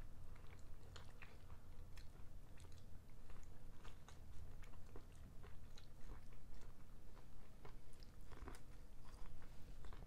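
Biting and chewing corn on the cob, with many short crisp clicks and crunches as kernels are bitten off the cob.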